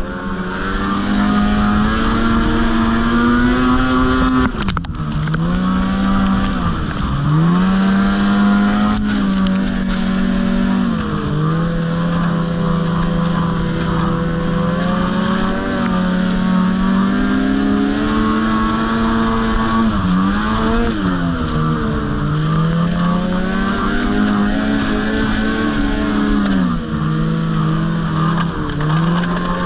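Ski-Doo snowmobile engine running hard at speed along a trail. Its pitch dips sharply several times as the throttle is eased off, then climbs back as it is reapplied.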